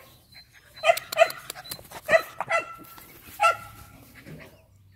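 Dog barking: about six short, high-pitched yapping barks in quick clusters, stopping after about three and a half seconds.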